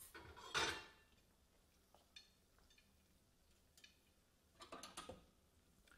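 Faint clicks and knocks of dishes being handled, with a louder clatter about half a second in and a few more knocks near the end.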